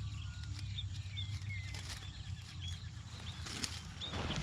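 Small birds chirping: many short, separate calls, some sliding in pitch, over a low steady rumble, with a brief rustle a little before the end.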